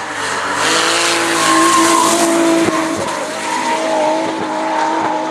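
Drift car sliding through a corner, its engine held at high revs with the tyres screeching in a continuous slide. It is loudest a couple of seconds in.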